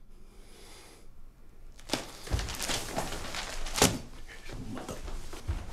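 Movement sounds of a man getting up from an upholstered armchair and walking off: a sharp click about two seconds in, then low thuds and a sharp knock near four seconds.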